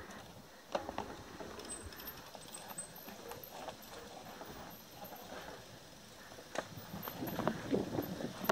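Mountain bike rolling down a rough dirt singletrack: tyres on dirt and loose stones, with scattered knocks and rattles as the bike goes over rocks and roots, more frequent near the end.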